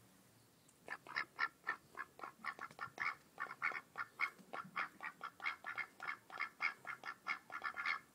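Domestic mallard ducks quacking in a fast run of short quacks, about four or five a second, starting about a second in.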